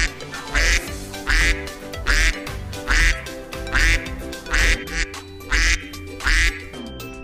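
Duck quacking: eight loud quacks at a steady, even pace, about one a second, over background music.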